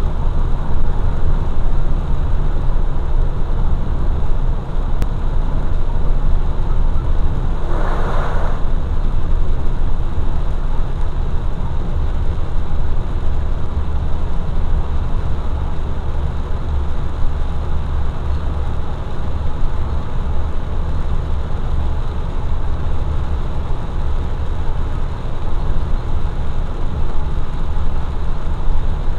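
Steady low rumble of a vehicle driving on a wet highway, with engine and road noise and the hiss of tyres on wet pavement. A brief louder rush about eight seconds in.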